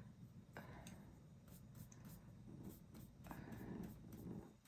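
Faint scratchy strokes of a paintbrush rubbing across canvas, several light passes over a low room hum.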